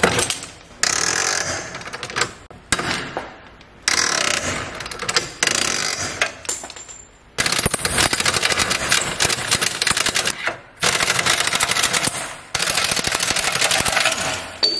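Ratchet wrench turning out a BMW E46's rear camber arm bolt that has just come free: a rapid clicking rattle in bursts of one to three seconds with short pauses between.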